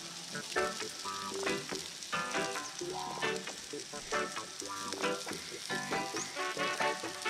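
Sliced onions sizzling steadily in melted butter in a frying pan over charcoal, a constant high hiss.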